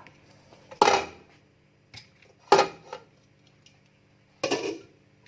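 Mussel shells clattering as the mussels are handled, in three short bursts about a second and a half apart.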